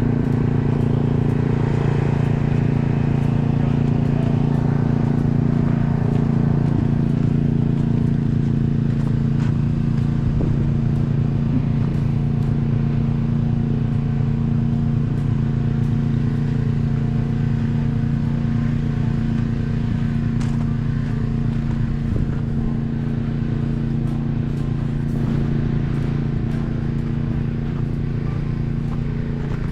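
A motor vehicle's engine running steadily nearby at an unchanging pitch.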